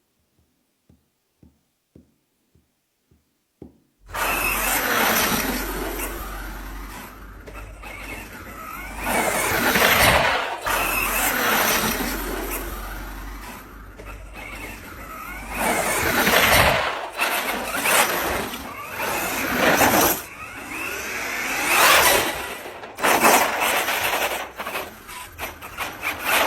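Brushless electric motor of an Arrma Kraton 6S radio-controlled monster truck revving and driving, a whine rising and falling in repeated surges every few seconds. About four seconds in, it starts suddenly after a few faint ticks.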